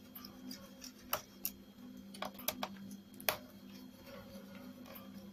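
Small screwdriver working the screws of a laptop's CPU heatsink plate: a handful of sharp, light metallic clicks at irregular intervals as the screws are turned out, over a faint steady hum.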